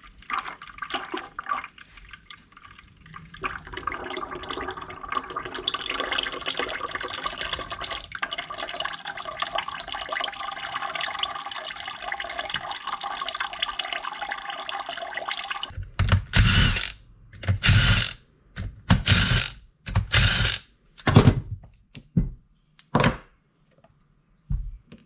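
Engine oil draining from a 1936 Farmall F-12's sump through a drain pipe into a bucket: a steady splashing pour that builds a few seconds in. It cuts off abruptly and gives way to a run of loud, sharp metal knocks and clanks.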